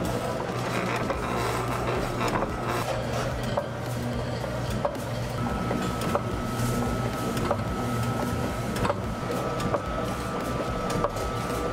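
Electric meat slicer running with a steady motor hum and scattered light clicks as it cuts thin slices of cooked beef; a faint high whine joins the hum about halfway through.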